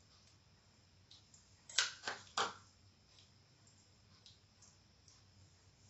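Light clicks of hands, rings and bangles knocking against a stainless steel bowl while spice paste is stuffed into mackerel: three quick, sharp clicks about two seconds in, with fainter ticks around them.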